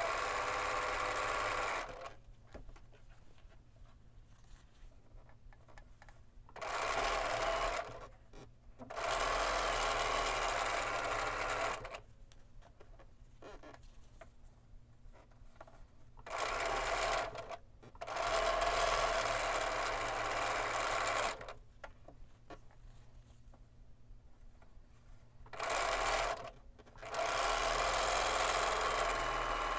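Bernina B 770 Quilters Edition sewing machine stitching short quarter-inch seams in spells of one to three seconds, stopping and starting again several times with brief pauses between runs.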